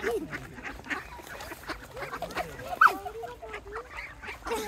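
Mallard ducks quacking close by in a string of short calls, the loudest about three seconds in, as they gather to be fed.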